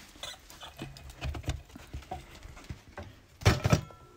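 Irregular light knocks and clatter of handling, with two louder knocks about three and a half seconds in followed by a brief metallic ring.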